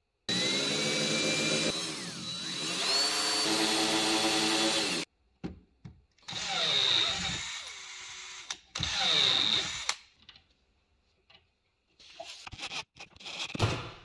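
Cordless drill boring into a block of HDPE plastic: one long run of about five seconds, then two shorter runs with the motor pitch dipping and recovering, followed by a few light clicks near the end.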